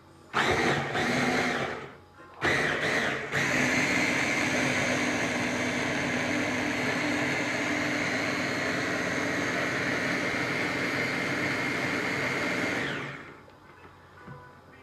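Electric hand blender running on its chopper bowl, blending tomato sauce: a short burst, a brief stuttering pulse, then a steady whining run of about nine seconds that winds down near the end.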